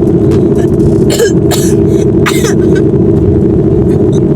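Steady loud drone of a car's cabin noise. Three short throat sounds, like coughs or throat-clearing, come between about one and two and a half seconds in.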